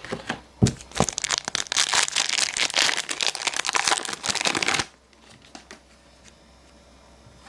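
Crinkling and rustling of a trading card pack wrapper being handled, lasting about five seconds, then only faint rustles.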